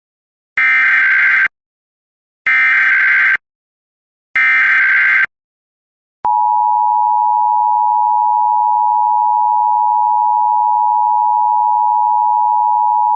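Emergency Alert System required monthly test: three screechy bursts of SAME header data, each just under a second and about two seconds apart, then about six seconds in the steady two-tone EAS attention signal starts and holds.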